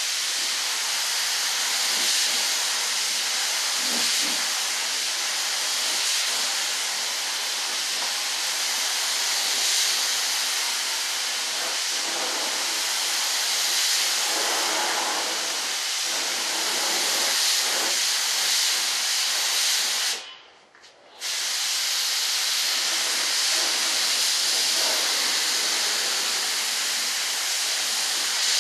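Gravity-feed compressed-air spray gun hissing steadily as it sprays a coat of primer. The hiss cuts off for about a second roughly two-thirds of the way through, then starts again.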